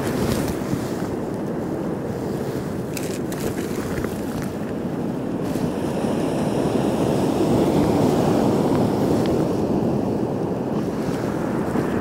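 Rough sea surf washing against the rocks with wind buffeting the microphone: a steady rushing that swells a little about seven seconds in. A few light clicks about three seconds in.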